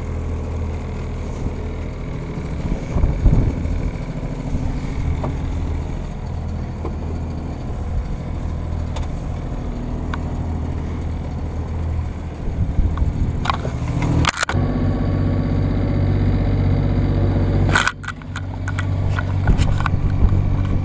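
Sailing yacht's engine running steadily with a low drone, mixed with wind and water noise. A few knocks and bumps come in the last third.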